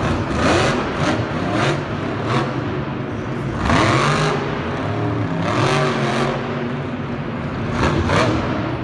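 A vehicle engine revving, its pitch rising and falling repeatedly, with irregular bursts of noise over it.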